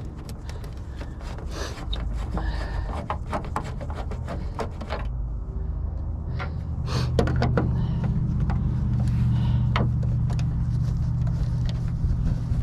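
Irregular clicks, taps and clatter of a screwdriver and hand tools working on a TV's plastic casing and screws, over a low steady rumble that grows louder about seven seconds in.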